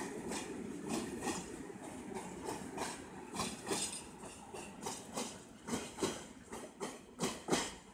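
Freight train of PKP Cargo hopper wagons rolling past, the wheels clacking over the rail joints in quick pairs over a steady rumble. The rumble fades while the clacks grow sharper toward the end.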